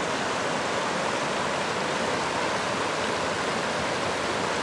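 Shallow river rushing steadily over a stony bed in small rapids.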